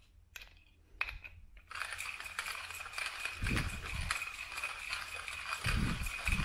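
Timemore C2 hand coffee grinder grinding coffee beans: a couple of light clicks, then from about two seconds in a steady dense crunching of beans between the burrs, with a thin high whine running through it and a few low bumps from the grinder being handled. The grind is set very fine, as the owner reckons.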